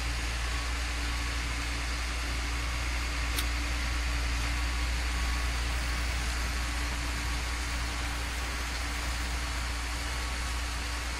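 Steady low hum of an engine idling, with an even hiss over it; one brief click about three and a half seconds in.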